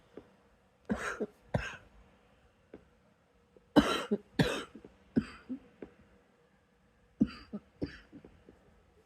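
A person coughing in three short bouts, two coughs, then three, then two, trying to bring up a small bit of phlegm.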